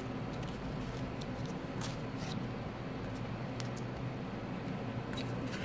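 Hands handling wrapped comic books: scattered light crackles and crinkles of the packaging, over a steady low hum.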